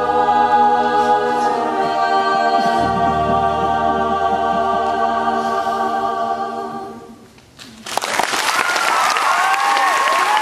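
Mixed choir of teenage voices holding a sustained final chord that fades out about seven seconds in. Audience applause then breaks out suddenly, with whoops and cheers.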